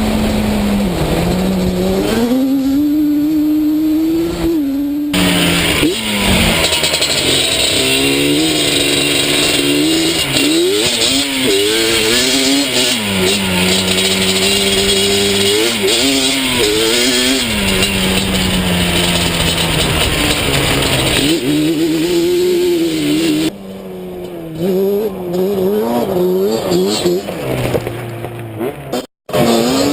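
Tuned Yamaha Banshee quad's twin-cylinder two-stroke engine being ridden hard, its pitch climbing and falling again and again with throttle and gear changes. A loud rushing hiss rides over the middle stretch, and the engine drops back quieter about three-quarters of the way through.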